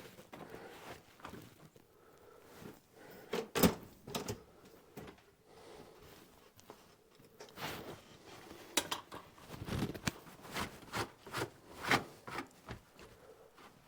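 Irregular knocks, clunks and rubbing of wooden pieces being handled, with the sharpest knocks about a third of the way in, past the middle and near the end.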